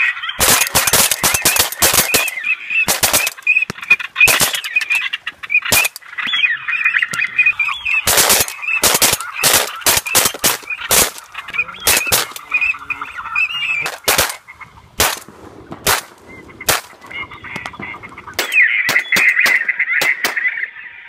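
Heavy volley of shotgun fire from several guns, dozens of shots in quick succession that thin out near the end, with ducks quacking and honking throughout.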